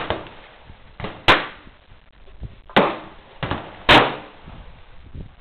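Gunshots fired one after another at irregular spacing, about five in all, the loudest about a second in and near four seconds in.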